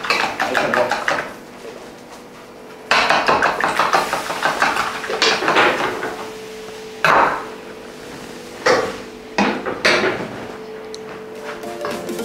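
Eggs being beaten in a bowl, the utensil clinking rapidly against the bowl in spells of quick strokes with short pauses, then a few shorter clatters in the second half.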